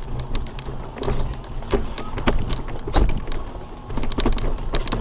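Mobility scooter's electric motor running steadily as it drives over flagstone paving, with irregular clicks and knocks as the scooter rattles over the uneven stones.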